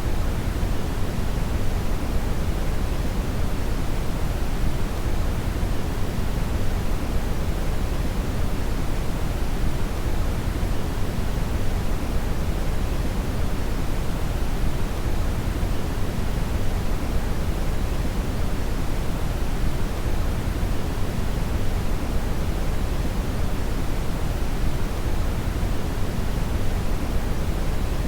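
Steady synthetic brown noise: an even, deep rumbling hiss, strongest in the bass and falling away toward the treble, with no change over time.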